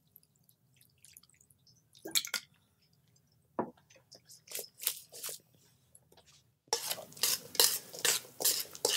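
Spoon stirring and tossing chopped salsa in a stainless steel mixing bowl: quick clinks and scrapes of metal on metal that start about two-thirds of the way in. Before that come a few scattered knocks and clicks.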